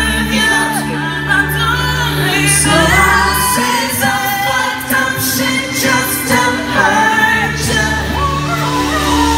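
Female pop vocalist singing live into a microphone over band accompaniment, amplified through a concert sound system, with wavering runs and held notes over a sustained bass.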